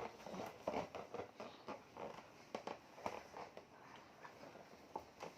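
A string of irregular, soft knocks and rustles of movement in a small room.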